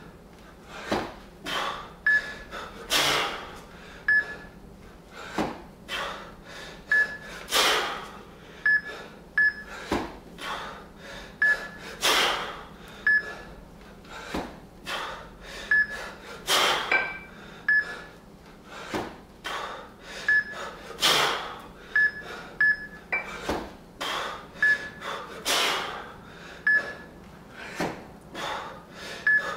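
A lifter's forceful breathing through a set of two-arm kettlebell jerks, with a sharp exhale or gasp at each rep and the strongest about every four and a half seconds. Short, high electronic beeps come from the Fixometer on his wrists, some of them in quick pairs.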